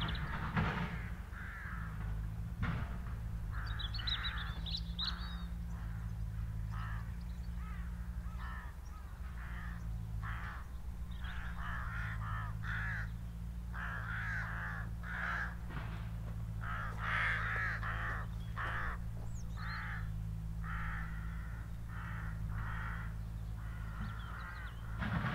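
Crows cawing: short calls repeated in irregular runs, over a low steady hum.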